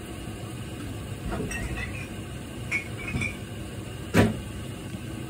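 A gas stove with a pan cooking on it: a steady low rumble throughout, with a few light clinks and one sharp knock about four seconds in.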